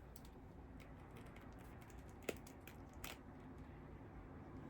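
Faint taps and clicks of a plastic action figure being handled, with two sharper clicks about two and three seconds in as a chainsaw-arm piece is fitted back on.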